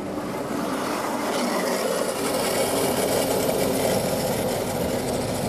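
Model electric train running along its track: a steady whirr and rumble of its motor and wheels on the rails.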